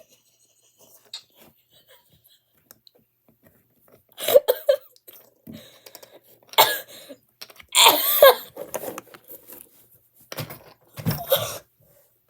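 Short bursts of giggling and laughter, starting about four seconds in after a quiet stretch.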